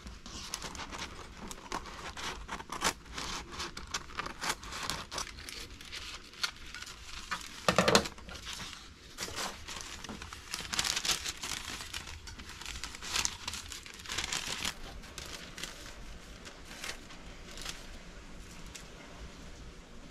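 Sheets of printer paper rustling and crinkling as they are handled, with scissors snipping through them to cut out small labels. The handling is busiest in the first fifteen seconds, with one louder crackle about eight seconds in.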